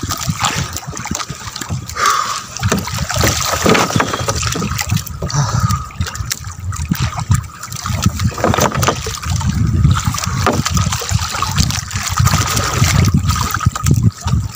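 Seawater splashing and sloshing irregularly.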